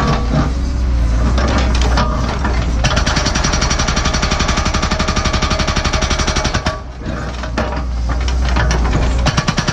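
Cat 314E excavator with an NPK hydraulic hammer breaking hard blue bedrock: the diesel engine runs for about three seconds, then the hammer pounds the rock in a fast, even string of blows for about four seconds. It stops for a couple of seconds with only the engine running, and the hammering starts again near the end.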